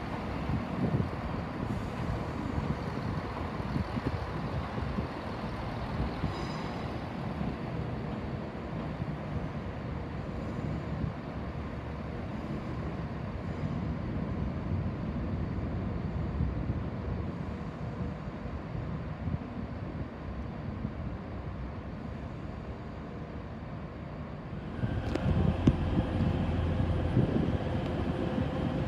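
Railway station ambience: a steady low rumble of trains running. About 25 seconds in it becomes louder, with a steady engine hum added.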